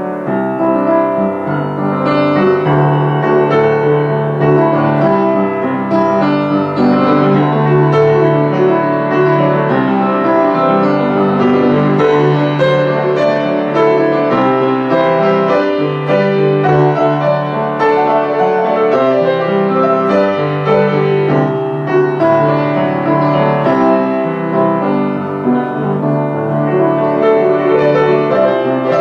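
Solo piano playing continuously: busy chords and melody over low bass notes that are held and changed every second or two.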